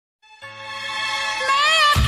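Opening of a Hindi film song fading in from silence: sustained held notes with a wavering melody line rising over them, before any beat comes in.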